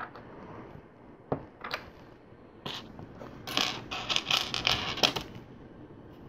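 Loose plastic LEGO pieces clicking and clattering as they are handled and sorted through: a few single clicks, then about two seconds of dense rattling of pieces.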